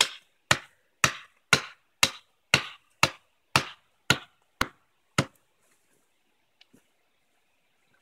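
Fiskars X5 hatchet chopping into the base of a dry standing tree's trunk, sharp strikes about two a second, eleven in all, stopping a little past five seconds in. A faint click or two follows about a second later.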